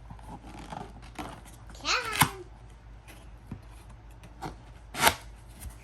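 Cardboard packaging being handled and pried open: scattered sharp clicks and snaps, the loudest about two seconds in and again about five seconds in. A short pitched vocal sound falls in pitch about two seconds in.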